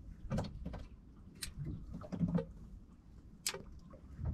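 Scattered light clicks and small knocks at irregular intervals, from handling the fishing rod and spinning reel while jigging from a small boat, over a low rumble of wind and water.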